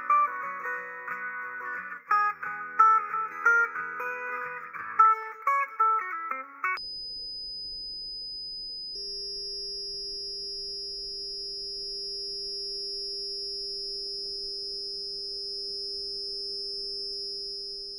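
Background guitar music stops about seven seconds in. A steady, high-pitched 5,000-hertz test tone from one headphone driver takes its place. About two seconds later a 5,400-hertz tone from the other driver joins, and a steady low 400-hertz beat tone appears where the two tones interfere.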